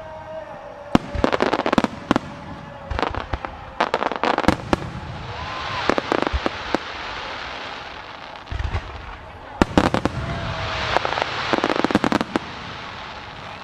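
Starmine fireworks barrage: shells bursting with sharp bangs in quick clusters, with crackling and hissing showers of sparks between the volleys.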